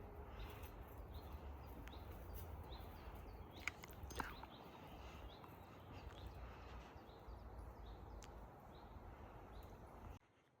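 Faint outdoor ambience: a steady hiss and low rumble, with a bird repeating short high chirps about once a second and two small clicks around four seconds in. The sound cuts off abruptly near the end.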